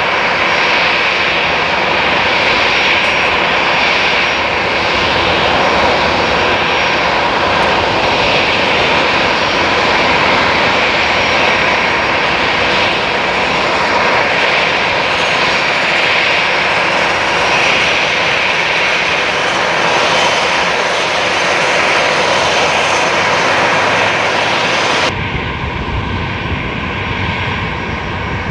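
Twin-engine jet airliner's turbofan engines running as it taxis, a loud steady rushing. About 25 seconds in the sound changes abruptly to a duller, deeper rumble.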